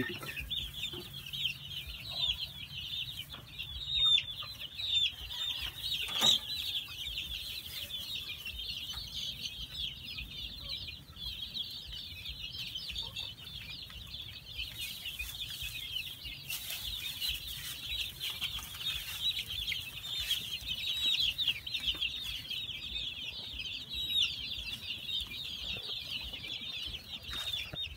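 A flock of young chicks peeping without a break, a dense chorus of high cheeps. A short knock about six seconds in.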